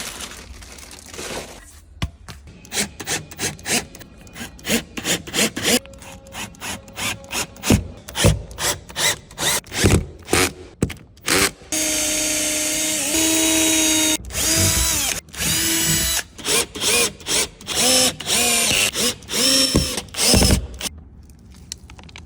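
Power drill running in short bursts, with one longer run of a few seconds in the middle. Its motor pitch drops as each burst slows to a stop, among many sharp clicks and knocks.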